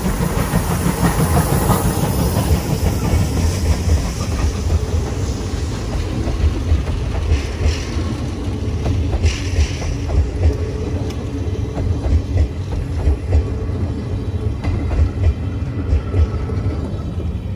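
A JNR Class C11 steam tank locomotive passing close by, then its passenger coaches rolling past, wheels clacking over the rail joints. Wind buffets the microphone.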